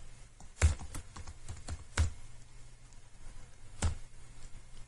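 Computer keyboard being typed on slowly: a handful of separate key clicks, irregularly spaced, over a faint low hum.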